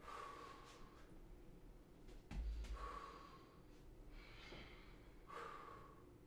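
Heavy breathing of people doing chair tricep dips: three forceful breaths about two and a half seconds apart, in time with the dips. A low thump comes about two and a half seconds in.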